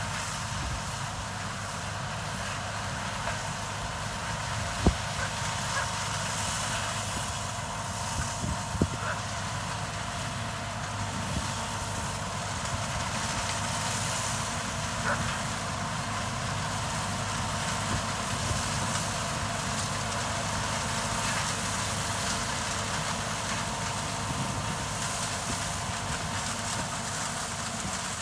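John Deere 4420 combine running steadily while harvesting corn with its four-row corn head, a continuous machine drone. A few sharp knocks cut through, the loudest about five seconds in.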